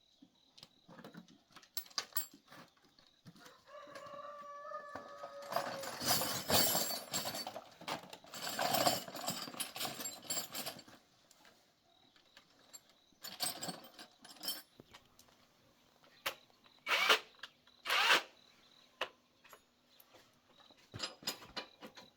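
A rooster crows once, about four seconds in, a drawn-out call. Around it come longer stretches of noisy rustling and scraping, then a few short sharp bursts of noise, the loudest about two-thirds of the way through.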